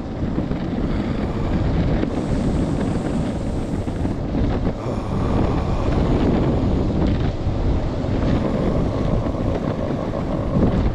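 Gusty wind buffeting the action camera's microphone, a dense low rumble over the sound of a moving electric skateboard.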